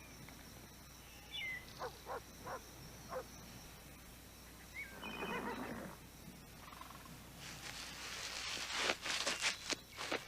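Horses outdoors with scattered bird chirps: a horse's snort about five seconds in, then hooves clopping irregularly on the ground from about eight seconds, growing louder toward the end.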